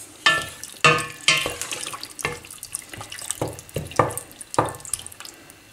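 Wooden spoon stirring raw diced turkey in oil in a stainless steel pot: irregular knocks and scrapes of the spoon against the pot, some with a short metallic ring, over wet squelching of the meat.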